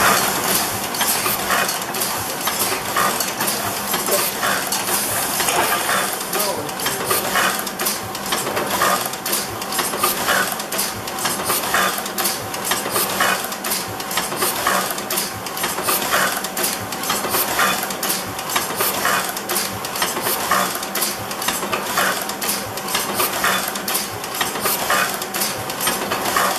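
Several letterpress platen presses running together: a steady, rhythmic clatter of metal clicks and clanks as the platens and feed arms cycle.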